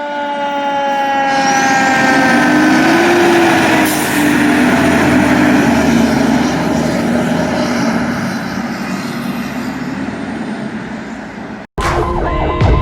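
A fire truck's mechanical siren winding down, its pitch falling slowly over the first few seconds, followed by heavy truck engine and road noise. Near the end it cuts off abruptly and an electronic siren begins, cycling rapidly.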